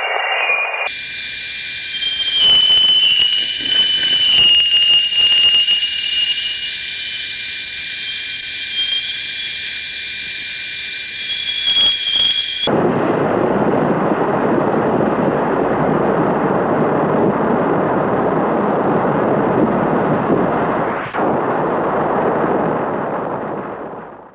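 Radio static presented as solar activity picked up by shortwave radio and plasma wave instruments. For about twelve seconds there are thin, high whistling tones that waver in pitch, with crackles. The sound then switches suddenly to a steady hiss that fades out near the end.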